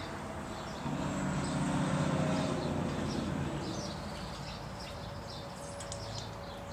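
Birds chirping over and over in the background, over a steady low hum. A low droning motor sound swells about a second in and fades away over the next few seconds.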